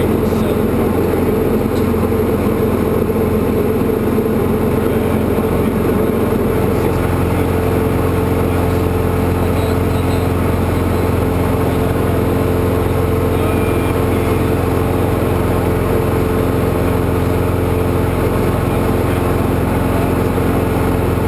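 Diamond DA40's four-cylinder Lycoming engine and propeller running steadily at climb power just after takeoff, heard inside the cockpit.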